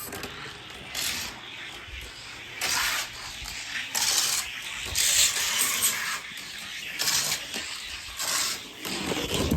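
Small die-cast toy car rolling down a long gravity race track, its wheels making a steady hissing rumble that swells into louder rushes every second or so. A low thump comes near the end.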